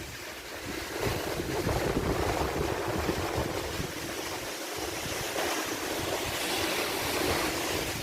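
Steady rushing noise of a waterfall, with wind buffeting the microphone in uneven gusts.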